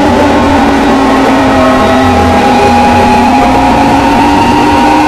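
Synthesized mock emergency-alert alarm tones, boosted until distorted and very loud: several steady pitches sounding together, stepping slightly in pitch a couple of times.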